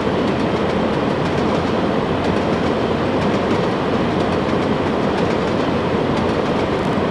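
Short train rolling by, a steady rumble of wheels on the rails with faint clicking over the rail joints.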